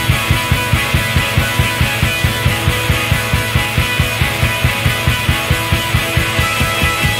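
Rock music with a fast, steady drum beat.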